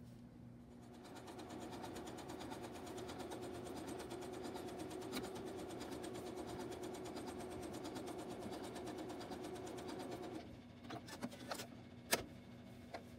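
Janome Skyline S6 sewing machine running steadily, sewing a blind hem stitch with a fast, even beat of needle strokes. It starts about a second in and stops at about ten seconds, followed by a few sharp clicks.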